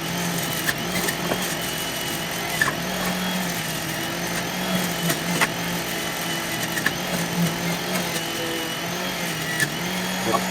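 NutriBullet centrifugal juicer running at full speed while juicing pears: a steady motor hum with a wavering pitch under a rushing noise, and scattered small knocks as pieces of fruit hit the spinning basket.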